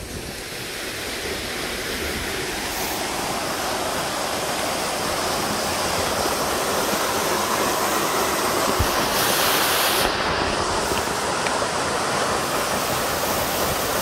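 A thin, low-flow waterfall pouring off a rock ledge into a plunge pool: a steady rushing splash that grows gradually louder over the first several seconds.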